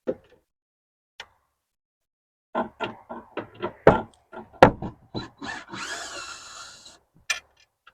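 Wooden knocks and clunks as a roost bar is worked loose inside a wooden chicken coop, a quick run of them in the middle, followed by a rasping sound with a wavering pitch lasting about a second and a half, and one last knock near the end.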